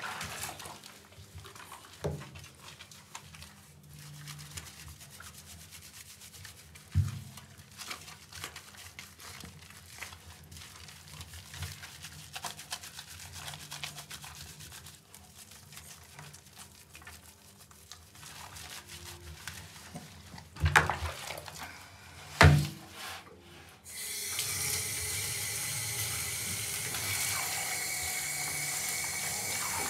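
Hands rubbing shampoo lather into a Maltese dog's wet coat in a basin of water, with soft squelching and splashing. Two loud knocks come a little past two-thirds of the way through. About four-fifths of the way in, a hand shower starts running with a steady hiss of water into the bathtub.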